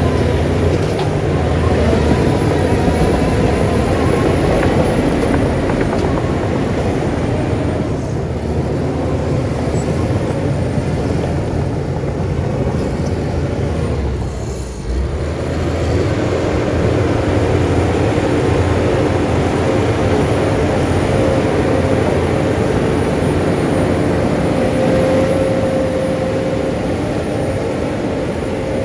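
Heavy diesel earthmoving machinery running steadily and loudly, with a brief dip in level about halfway through.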